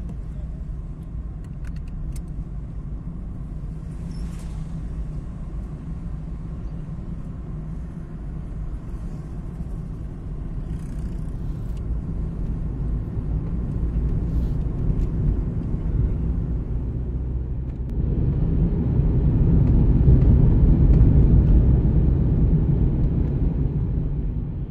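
Car driving on a paved highway: a steady low rumble of engine and tyre noise that builds gradually and then steps up sharply about three-quarters of the way through, with a few faint ticks early on.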